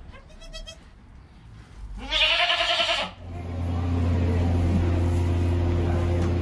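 A goat bleats loudly once for about a second, after a short fainter call near the start. A steady low mechanical hum comes in right after the bleat and keeps on.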